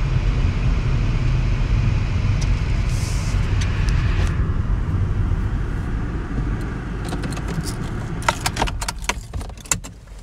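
Car being driven, heard from inside the cabin: a steady low engine and road rumble that eases off after about seven seconds, followed by a run of light clicks and rattles near the end.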